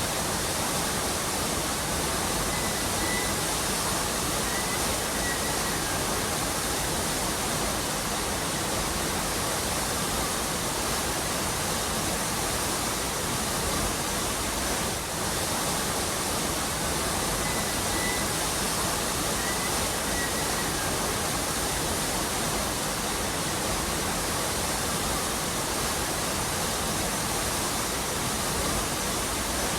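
Waterfall pouring over a rocky cliff: a steady, unbroken rush of falling water.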